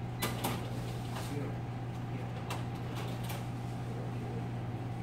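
A steady low electrical hum with half a dozen sharp clicks or taps, bunched in the first second and again around two and a half to three and a half seconds in.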